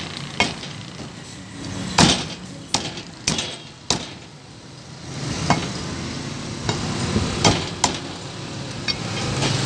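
Heavy meat cleaver chopping boneless chicken on a wooden log chopping block: about ten sharp, irregular chops, the loudest about two seconds in, over a steady low background hum.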